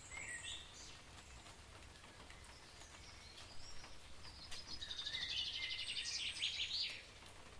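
Songbirds chirping, with a louder, fast trill of rapidly repeated notes in the second half that stops near the end, over a faint low hum.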